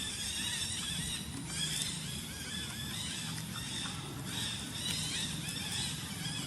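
Many short, high chirping animal calls repeating and overlapping, over a low rumble.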